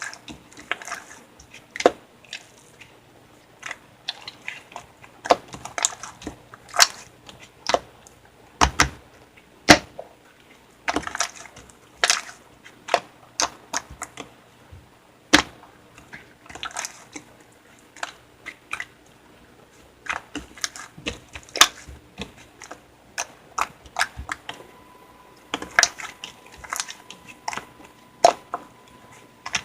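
Slime being squeezed and kneaded by hand, giving irregular sharp pops and clicks, several a second, with softer squishing between them.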